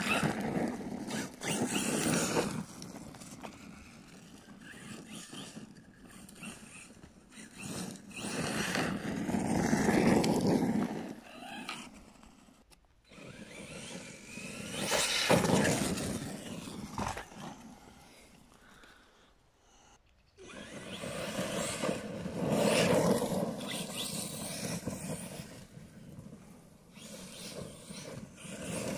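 Arrma Kraton 6S RC monster truck's brushless motor and tyres on dirt during repeated runs, the sound surging for a few seconds at a time as it accelerates and passes, then falling away between runs.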